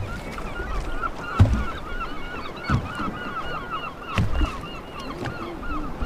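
A flock of birds calling, many short overlapping calls in quick succession, with a few low knocks in between.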